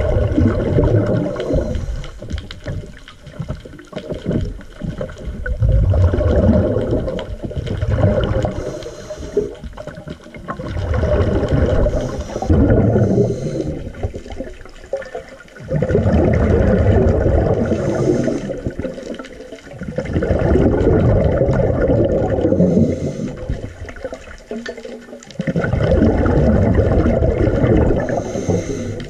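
Scuba diver's exhaled bubbles from the regulator, heard underwater: a burst of gurgling bubbles about every five seconds, with quieter gaps between.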